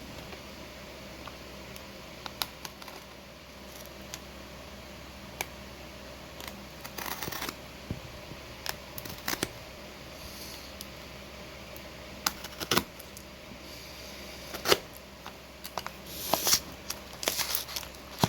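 A cardboard package being opened and unpacked by hand: scattered clicks and taps with short bursts of rustling and scraping, over a steady low hum.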